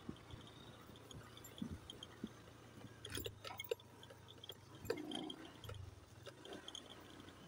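Faint footsteps and rustling on a dry grassy path, irregular and bunched about halfway through, with short high insect chirps repeating in the background.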